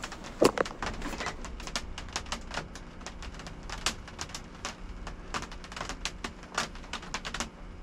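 Drops of rain and sleet hitting the roof of a pickup's canopy, heard from inside: irregular sharp ticks, several a second, over a low steady rumble.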